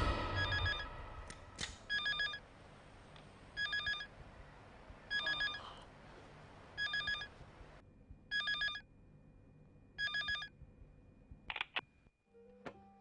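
A telephone ringing: a trilling electronic ring repeated seven times, about one ring every second and a half. A few sharp clicks and a short low tone follow near the end.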